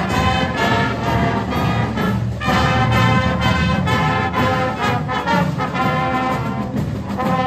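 Marching band playing: trombones, trumpets, saxophones and sousaphones carry a tune over bass drums and cymbals keeping a steady beat.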